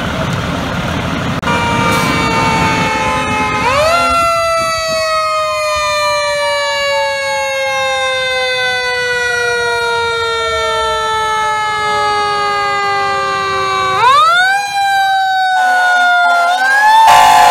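Fire truck siren winding up a few seconds in, then falling slowly in pitch for about ten seconds, and winding up again near the end, with the truck's engine running underneath at the start.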